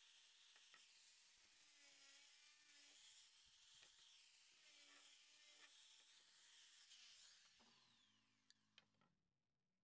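Near silence: a faint hiss with a few soft ticks, fading out about eight seconds in.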